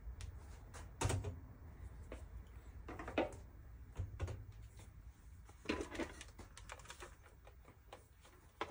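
A spatula scraping and tapping peanut butter off into a mixing bowl, then being set down: a handful of light knocks and clicks spread over several seconds.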